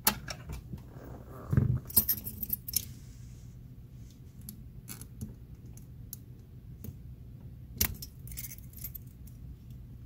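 Small metallic clicks and clinks of a brass padlock cylinder and its keys being handled during disassembly, coming irregularly with small clusters about two seconds in and again near eight seconds.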